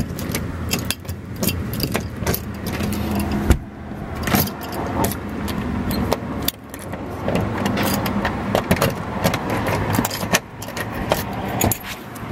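Keys jangling and a key working a door's deadbolt lock and lever handle, with many sharp metallic clicks, over a steady low hum.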